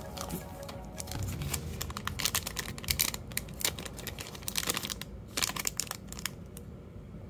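Foil Pokémon booster pack wrappers crinkling and tearing as they are opened by hand, a quick irregular run of crackles that thins out near the end, over background music.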